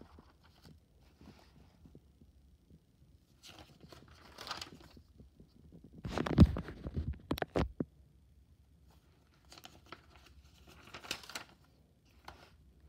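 Pages of a spiral-bound notebook being turned and smoothed by hand: paper rustling in several short bursts, with a louder thump and clatter of handling about six seconds in.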